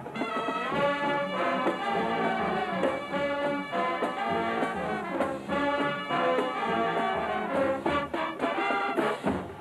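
High school marching band playing: brass chords over regular drum hits.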